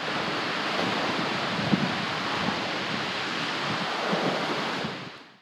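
Steady rushing wind noise, fading in at the start and out near the end.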